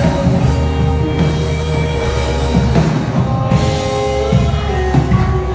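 Instrumental worship-band music: a drum kit playing under sustained keyboard chords, with no singing.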